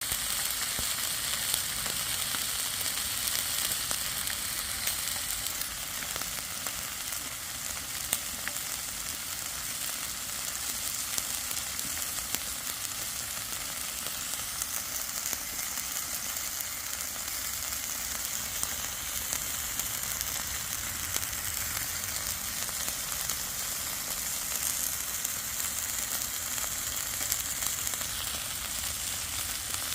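Beef top blade and chuck eye roll steaks sizzling as they sear on a hot cooking surface: a steady sizzle with scattered small pops of spitting fat.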